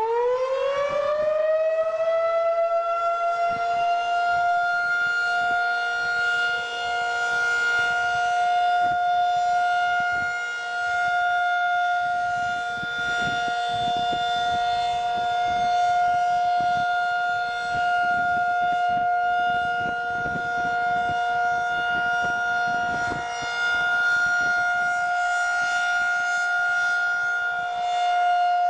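Federal Signal 2001-SRN outdoor warning siren sounding the full alert signal. Over the first few seconds it finishes winding up, its pitch climbing, and it then holds one steady wail. The loudness swells and fades gently every few seconds as the rotating siren head turns.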